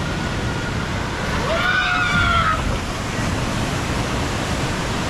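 Steady rush of water along a raft water slide with wind on the microphone. A voice calls out briefly about a second and a half in.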